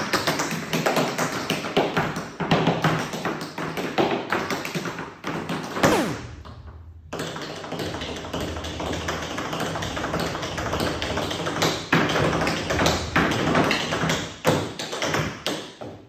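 Tap shoes striking a hard floor in fast, rhythmic tap-dance steps over background music. About six seconds in, a falling sweep sounds and the tapping breaks off for about a second, then a new run of taps starts.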